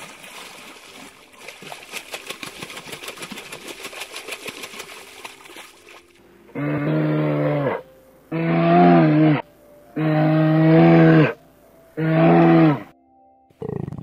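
Water splashing and slapping as a crowd of koi jostles at the surface, then four long, deep calls from a brown bear, each about a second long, with short pauses between them.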